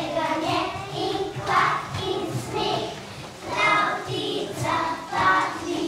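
Group of young children singing a song together in short phrases.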